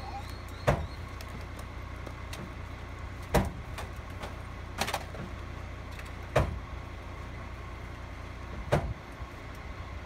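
Rear-loading garbage truck's engine idling steadily, with five sharp bangs a second or two apart as bulky rubbish is thrown into the metal rear hopper.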